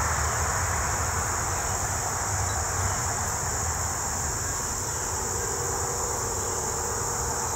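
Steady high-pitched insect chorus trilling without a break, over a low rumble.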